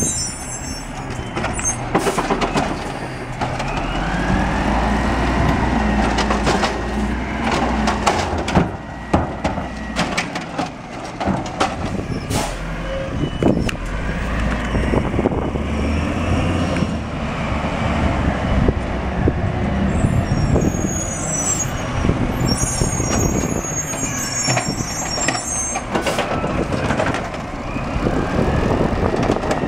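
Peterbilt garbage truck with an Amrep automated side loader working carts. The diesel engine runs and revs up and down as the hydraulic arm cycles, with repeated sharp clanks and bangs from the arm and the plastic carts.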